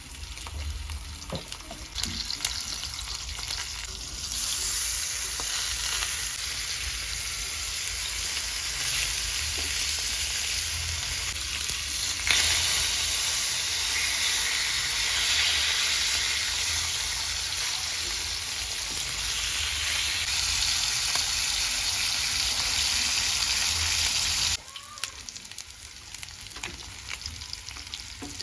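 Food frying in a pan, a steady sizzle that grows louder a few seconds in and again about halfway, then cuts off suddenly a few seconds before the end.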